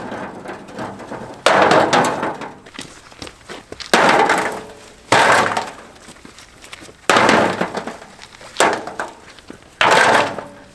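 Rocks dropped one by one into a wheelbarrow: six loud clattering impacts a second or two apart, each dying away over about a second.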